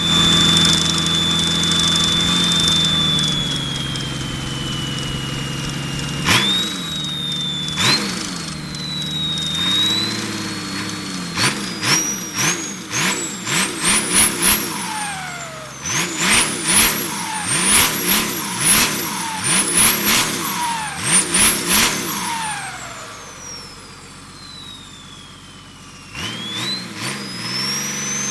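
Turbocharger fitted with an intake comb (pente na turbina) whistling on an engine that is revved again and again: a high whistle that rises with each throttle blip and sinks between them, with a sharp hiss on each blip. Near the end the revs and whistle die away slowly, then the whistle climbs again.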